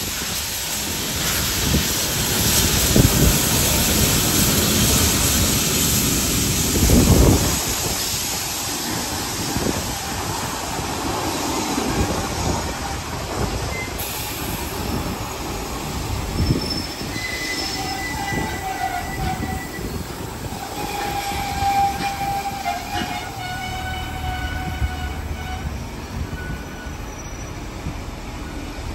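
C38-class steam locomotive 3801 passing close, followed by its heritage passenger carriages rolling by with a steady rumble and wheel clatter. The first several seconds are loudest as the locomotive goes past. In the second half, high squeals from the carriage wheels come and go.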